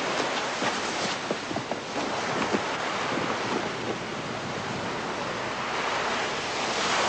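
Steady sea surf and wind, with wrapping paper and tissue crinkling in many small crackles through the first few seconds as a parcel is torn open.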